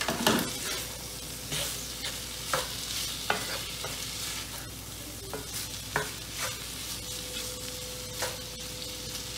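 Diced chicken, onions and red bell peppers sizzling in a cast-iron skillet while a wooden spatula stirs them, scraping and knocking against the pan every second or so.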